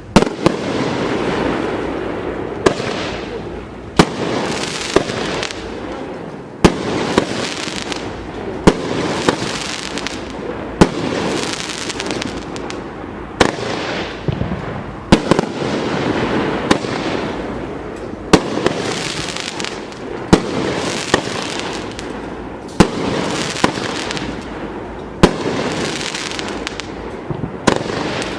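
A 500 gram consumer fireworks cake, Doremi's "The Snow Queen", firing shot after shot, roughly one a second and unevenly spaced. Each sharp bang is followed by a hissing spray of noise that fades before the next shot.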